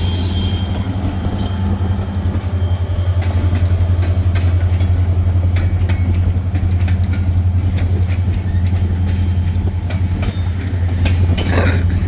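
Railroad cars rolling past: a steady heavy rumble with irregular sharp clicks of wheels over rail joints, and a brief louder rush near the end.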